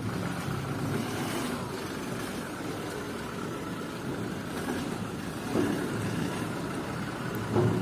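A Toyota Hilux pickup's engine runs at low speed as the fully loaded truck creeps over muddy ground. It swells briefly twice near the end.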